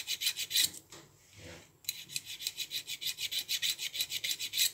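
Hand file rasping quickly back and forth over the steel cutting edge of a Knipex side cutter's jaw, about seven short strokes a second. The strokes stop for about a second near the start, then carry on at the same pace.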